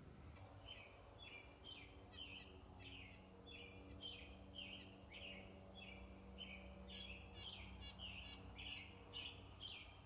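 A small songbird giving a long, quick series of short down-slurred chirps, about two to three a second, faint.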